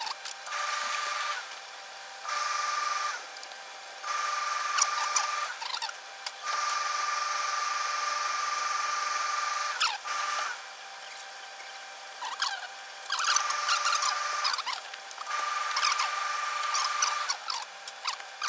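A machine's hiss with a steady high whine, switching on and off about seven times in stretches of one to three seconds, with light knocks and rustles of cloth being handled in between.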